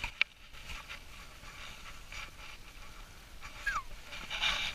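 Faint scraping and handling noises as a trout is hauled up through a hole in the ice. A sharp click comes just after the start, a brief falling squeak comes a little before the end, and a louder burst of noise comes near the end as the fish reaches the hole.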